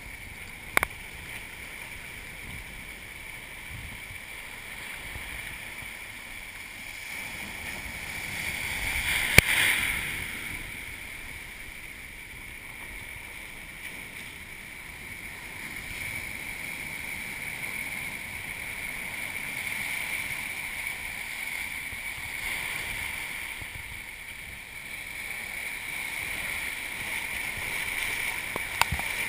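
Breaking surf washing up around a camera sitting in the shallows, swelling and falling back several times. The biggest wave comes about nine seconds in, with a sharp knock of water striking the camera.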